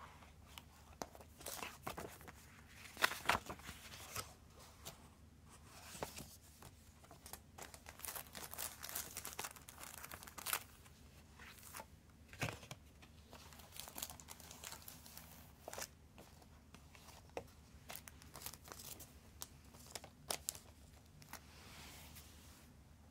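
Paper inserts, a cardboard CD sleeve and clear plastic bags being handled: irregular crinkling and rustling with light taps and clicks.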